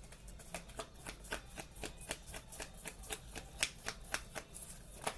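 Tarot cards being shuffled by hand: a quick, irregular run of soft card clicks and slaps, several a second.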